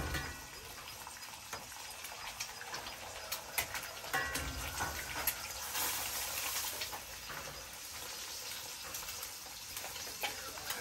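Eggs frying in a cast-iron skillet: a steady sizzle with scattered small taps and clicks, swelling to a louder sizzle about six seconds in.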